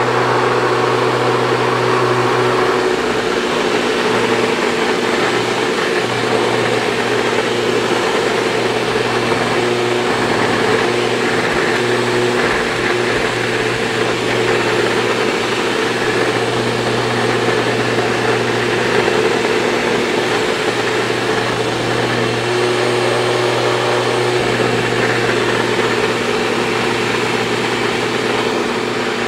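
Sebo Evolution 350 commercial upright vacuum cleaner running steadily on test, its motor and new brush roll giving a loud hum whose low part dips out and returns a few times. The owner says the brush roll still doesn't sound 100% right.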